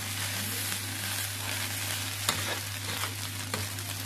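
Egg fried rice sizzling in a frying pan while a metal spatula stirs and tosses it, with a few sharper scrapes of the spatula against the pan in the second half. A steady low hum runs underneath.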